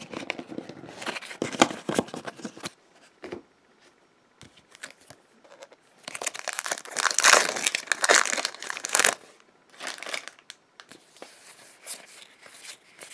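A Magic: The Gathering booster pack's foil wrapper crinkling and tearing as it is opened, loudest in a long burst from about six to nine seconds in. Shorter, lighter crinkles and rustles come before and after as the pack and its cards are handled.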